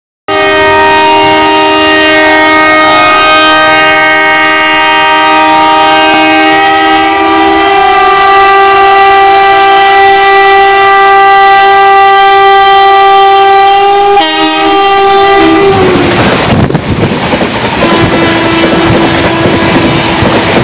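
A WAM-4 electric locomotive's twin-tone horn sounds loud and almost without a break for about fifteen seconds, with a brief gap near the end. Its pitch drops as it cuts off while the locomotive passes. Then comes the loud rush and clatter of the AC Superfast's coaches going past at full line speed.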